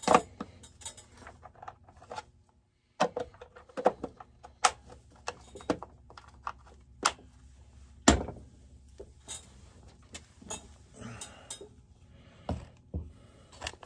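Irregular sharp clicks, taps and knocks of a chainsaw's plastic top cover and air filter being handled and pressed into place on a workbench. A few of the knocks are louder than the rest.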